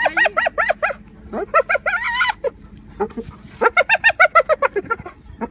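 Spotted hyena giggling: rapid runs of short, high yelps that rise and fall in pitch, about seven a second, in three bursts, with a longer wavering call about two seconds in.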